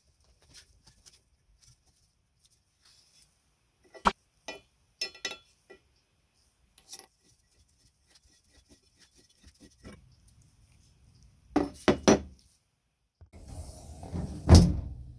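Small metal parts being handled and set down on a workbench, with scattered clinks and knocks: one about four seconds in, a quick group just after, a pair near twelve seconds, and a louder knock near the end over a rising noise.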